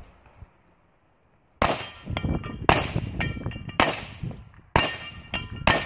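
Five gunshots about a second apart, starting about a second and a half in, each with the clang of a steel plate being hit on a plate rack and a short metallic ring after it.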